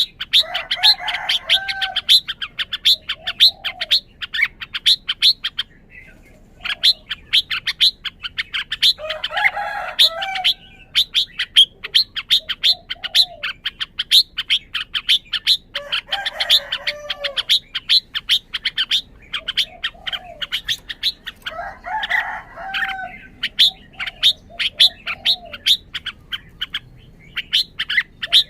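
Red-whiskered bulbul singing short warbled phrases about every six seconds over a fast, steady run of sharp ticking chips, several a second.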